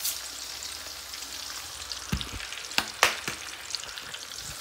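Chopped onions and green chillies sizzling steadily in hot oil in an aluminium frying pan as bay leaves and panch phoron seeds go in. A few sharp knocks come about two to three seconds in.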